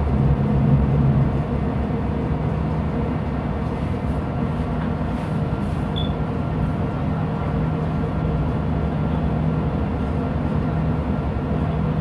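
Ship's main engine running slow astern, a steady low drone with a hum of even low tones, a little stronger in the first second or so.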